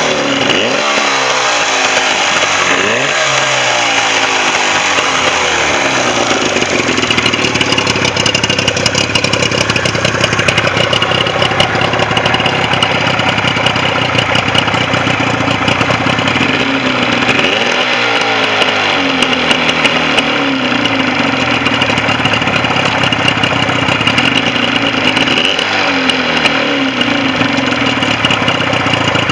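Johnson 40 hp two-stroke outboard motor running steadily, revved up a few times with its pitch rising and falling back. It runs well after an extensive repair of a motor that had sat unused.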